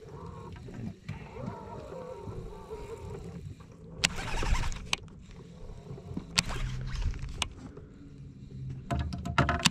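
Baitcasting reel worked in short, irregular turns as a spoon is jigged, giving several sharp clicks and rattles, a cluster about four seconds in and another near the end, over a low steady hum.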